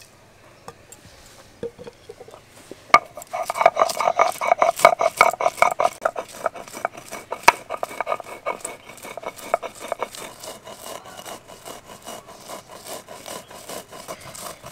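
Roasted whole spices (dried chillies, coriander, cumin, fennel, peppercorns) being ground to a fine powder in quick, evenly repeated scraping strokes. The strokes start about three seconds in.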